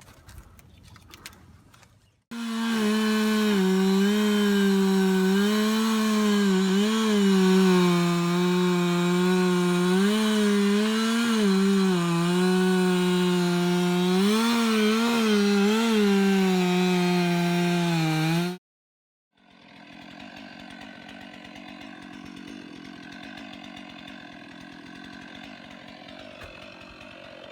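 Two-stroke chainsaw running at high revs while cutting wood, its pitch dipping under load and recovering several times. It cuts off abruptly, and a much fainter steady running sound follows.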